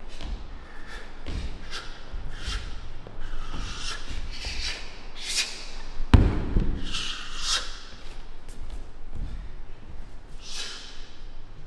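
Martial artists in a hall moving through a drill: irregular thuds of feet and bodies on the floor and a string of short, sharp swishes, with one heavy thud about six seconds in.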